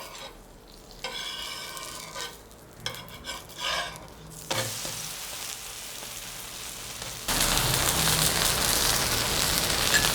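Oothappam frying on a hot griddle: a spatula scrapes under it a few times, then a steady sizzle that gets suddenly louder about seven seconds in, as the flipped side meets the hot griddle.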